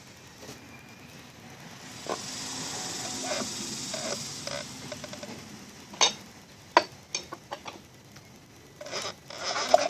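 Car engine being turned over slowly by hand with a wrench on the crankshaft: a soft rubbing or scraping sound, then several sharp metallic clicks and knocks in the second half. The engine is being checked for a squeak and rub that appeared after a new harmonic balancer was fitted, and it stiffens as it turns.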